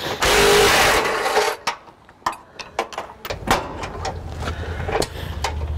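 Cordless DeWalt impact wrench running for about a second and a half on a bumper bolt, loud and buzzing. Then a series of light clicks and knocks of parts being handled, over a low rumble in the second half.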